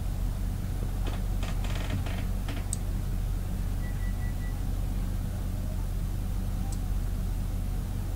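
A cluster of small sharp clicks between about one and two and a half seconds in, over a steady low hum, with a short single-pitched beep about four seconds in.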